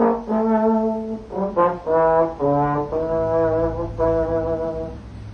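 A brass instrument plays a short phrase of separate notes, ending on a long held note.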